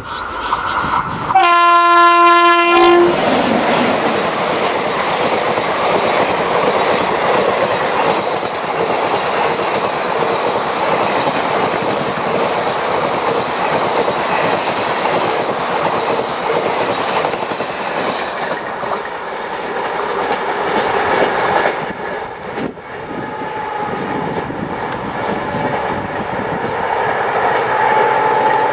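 An Indian Railways WAP-7 electric locomotive sounds its horn once, about a second and a half long, then a long passenger express passes close by with its wheels clattering over the rail joints. Near the end the sound becomes duller and more distant.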